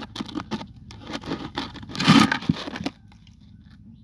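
Irregular rustling and crackling, with a louder rustle about two seconds in; it stops suddenly about three seconds in.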